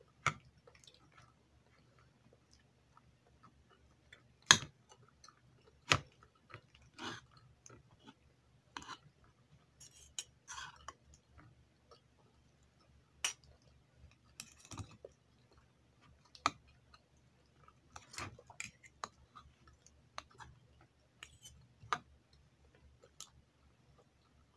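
Eating sounds: chewing and mouth noises, with sharp clinks of a fork and spoon against a bowl scattered irregularly throughout.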